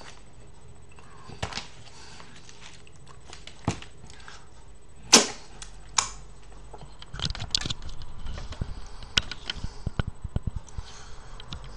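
Close-up eating sounds from chewing smoked mackerel: scattered sharp smacks and clicks of lips and teeth, the loudest about five seconds in. From about seven seconds a quick run of knocks and rubbing follows as the webcam is handled and moved.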